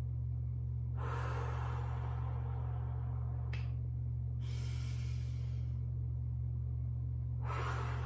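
A woman taking slow, deep breaths in and out through pursed lips, each breath lasting one to two seconds, with a sharp intake about three and a half seconds in. A steady low hum runs underneath.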